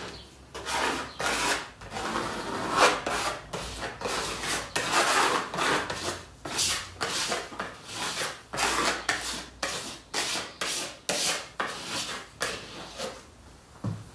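Repeated scraping strokes of a hand-held paint spreader dragged across a textured, freshly painted board, about two strokes a second, working the paint into the gaps of the texture.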